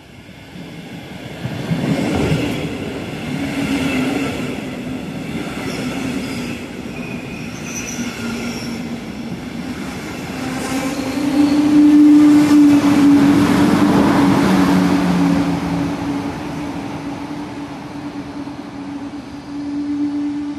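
Red Deutsche Bahn double-deck regional train pulling into the platform and braking. Wheels rumble and squeal along the rails, growing louder and loudest about twelve seconds in as the coaches pass close by. From about halfway there is a steady low hum.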